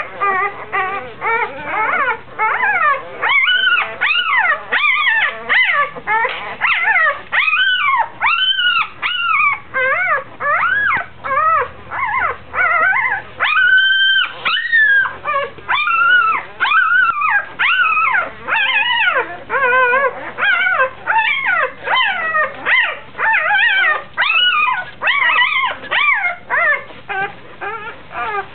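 Newborn Labrador puppy crying: a steady run of short, high squeals that rise and fall in pitch, about two a second. This is the cry of a hungry pup that can't find a teat to nurse on.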